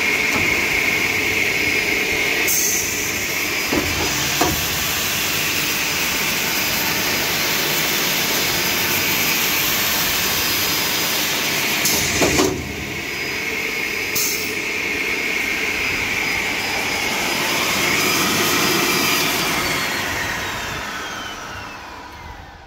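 Graule AS450 facade circular saw running with a steady motor and blade whine, broken by a few short clicks and knocks. Near the end the whine falls in pitch and fades as the saw is switched off and the blade spins down.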